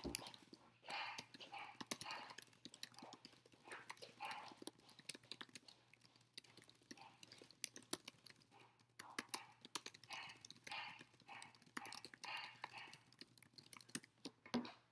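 Computer keyboard being typed on fast, a rapid irregular stream of key clicks during a typing test, stopping abruptly just before the end.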